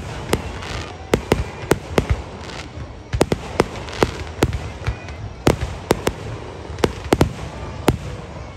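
Aerial firework shells bursting in quick, irregular succession, two or three sharp bangs a second over a continuous background rumble.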